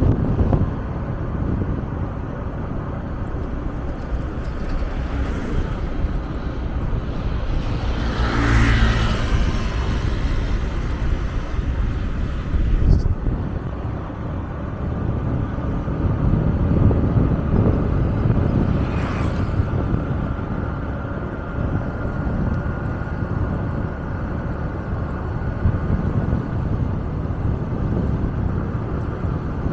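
Wind rumble on the microphone and road noise from a moving vehicle, with two louder swells, about nine and nineteen seconds in, as other vehicles pass.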